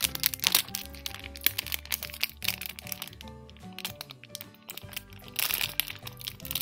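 Thin plastic blind bag crinkling and crackling as hands handle and tear at it, loudest near the start and again about five seconds in. Background music with steady sustained notes runs underneath.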